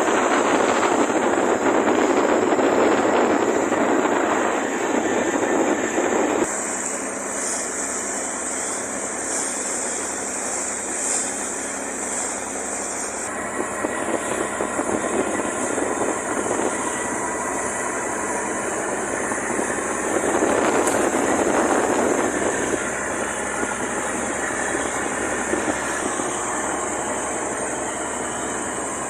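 Boat's engine running steadily underway, with rushing wind and water over it that swells louder at the start and again about two-thirds of the way through.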